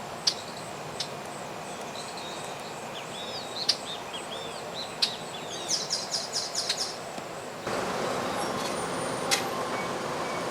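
Birds chirping in a quick run of short calls over steady outdoor background noise, with a few sharp ticks. About three-quarters of the way through, a louder steady rush of noise sets in and holds.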